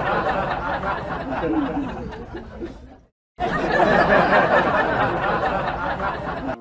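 Canned audience laughter and chatter, a laugh track. It cuts out abruptly for a moment about halfway through, then starts again at full level.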